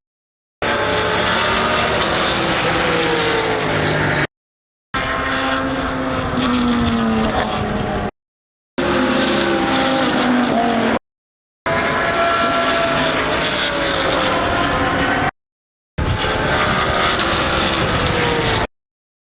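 GT3 racing cars' engines at full noise going past on track, the engine note dropping in pitch as each car passes. The sound comes in short clips about three to four seconds long, cut apart by brief gaps of complete silence.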